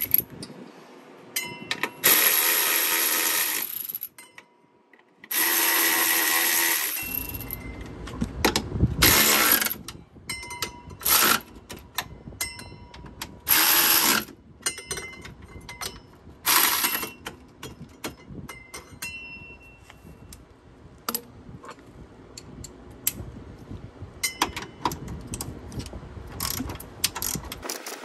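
Power tool driving in the mounting bolts of a new rear strut in bursts: two runs of about two seconds near the start, then several shorter ones, with sharp clicks and metal clinks between them.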